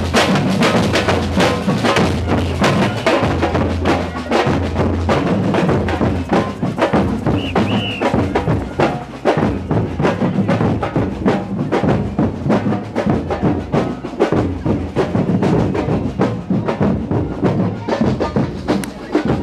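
Street drum band playing a steady, dense rhythm: large metal-shelled bass drums and snare drums struck with sticks, the low drums thudding under rapid snare strokes.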